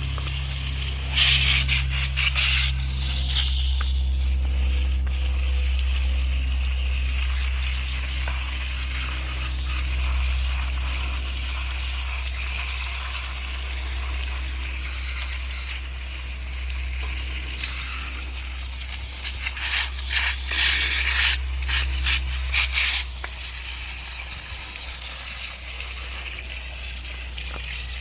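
Spray cleaner squirted onto circuit cards in quick repeated hissing bursts, one cluster about a second in and another around twenty seconds in, over a steady low hum.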